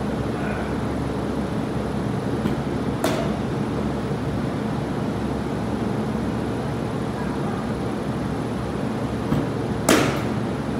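A baseball bat cracking against pitched balls twice, once about three seconds in and louder near the end, each crack preceded by a faint tick. A steady mechanical drone runs underneath.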